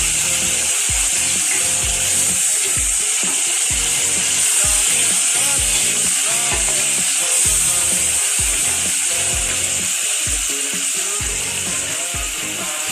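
Chopped red onions and garlic sizzling in a stainless steel saucepan as a wooden spoon stirs them, with a steady hiss. Background music with a steady beat, about two thumps a second, plays over it.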